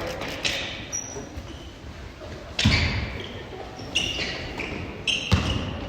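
A basketball bouncing on a gym's hardwood court, about four thuds a second or so apart, with a few short high sneaker squeaks.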